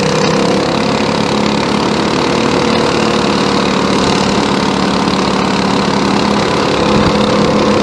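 Worn-out 212cc single-cylinder go-kart engine running steadily at an even pitch. The engine is leaking oil and on its last leg.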